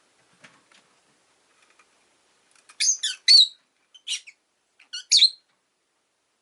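Rosy-faced lovebird giving sharp, shrill chirping calls: a quick cluster of calls about three seconds in, one more about a second later, and a last pair near the end. Faint light ticking comes before them.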